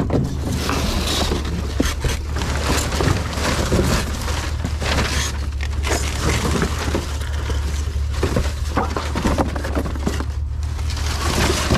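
Trash being rummaged and shifted by hand: a dense, continuous clatter and crunch of assorted junk knocking together, over a steady low rumble.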